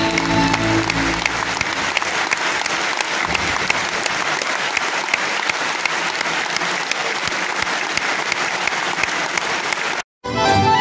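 Audience applauding, with the last of the folk music dying away in the first second or two. Near the end the sound cuts out briefly and music with singing starts.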